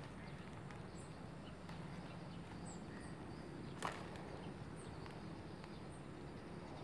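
Quiet outdoor ambience: a steady low background noise with faint, short high chirps now and then, and one sharp tap about four seconds in.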